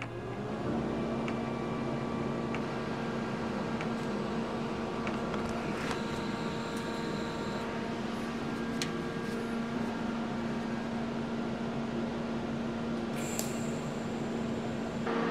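Electric arc welder running while pedal-box parts are welded: a steady electric hum with a faint hiss and a few light ticks.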